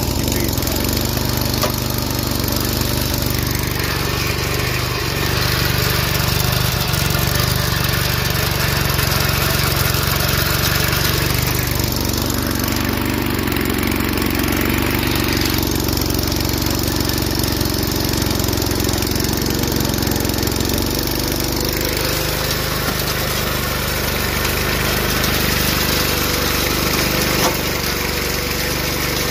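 John Deere 110 lawn tractor's engine running steadily while the tractor is driven, a continuous mechanical drone with a harsher, hissier stretch around the middle.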